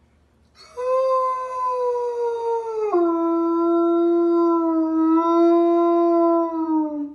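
A large dog howling: one long howl that starts about half a second in and drifts slowly down, drops abruptly to a lower pitch about three seconds in, holds there, then slides down again as it stops.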